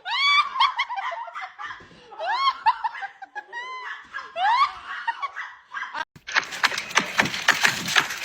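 A person laughing hard in repeated high-pitched, rising squeals. About six seconds in it cuts off abruptly, and a rapid, irregular rattle of clicks and rustling noise follows.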